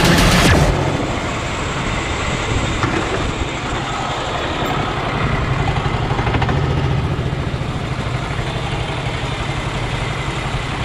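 Go-kart engine running at low, fairly steady revs as the kart rolls slowly into the pits. A louder, fuller sound cuts off abruptly under a second in.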